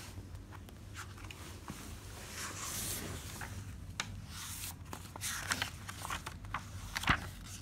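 Pages of a hardcover children's picture book being opened and turned by hand: soft paper rustles and swishes with a few light clicks and taps, the longest swish about two and a half seconds in.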